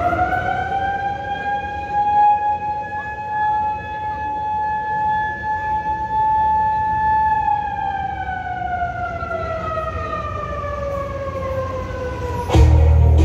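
A siren rising to a steady tone, holding it for several seconds, then slowly winding down in pitch. Music starts in just before the end.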